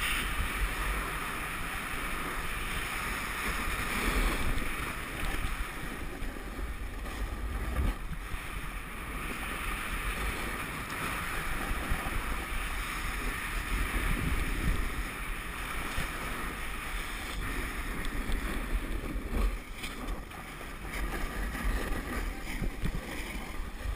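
Wind buffeting the microphone of a pole-mounted action camera during a fast downhill run, over the rough scraping hiss of riding on hard, crusty snow. The noise rises and falls unevenly throughout.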